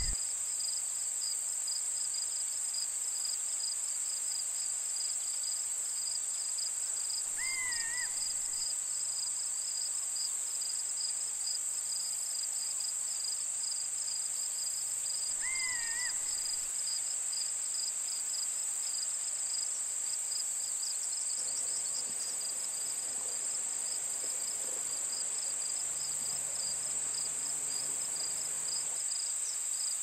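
Steady high insect chirring with a fast pulsing cricket trill under it. A short whistled bird call rises and falls twice, about eight seconds apart.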